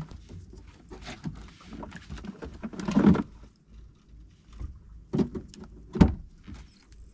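Irregular knocks and thumps, the loudest about three seconds in and two sharp ones near five and six seconds, over a low rumble.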